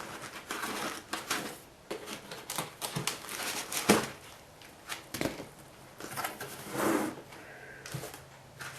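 Styrofoam packing and parts being pulled out of a cardboard box by hand: irregular clicks, knocks and scrapes.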